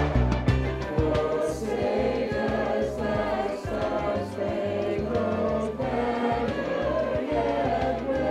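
Music: a choir singing over held instrumental chords and a bass line.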